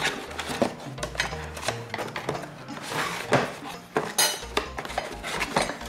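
Metal lamp-stand rods and fittings clinking and knocking against each other and the cardboard box as they are handled and taken out, with a brief cardboard rustle about four seconds in. Faint background music underneath.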